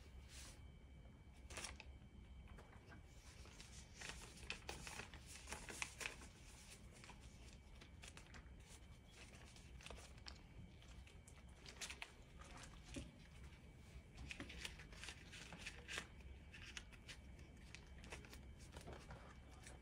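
Paper banknotes being handled and folded: faint, irregular rustling and crinkling in short bursts.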